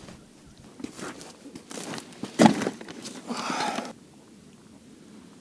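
Crunching footsteps on wet, thawing snow over lake ice, with rustling of winter clothing and handled gear, and one sharp knock about two and a half seconds in, the loudest sound.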